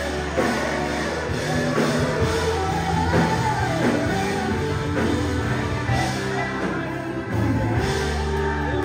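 Gospel worship song: voices singing together over band accompaniment, with sustained low bass notes underneath.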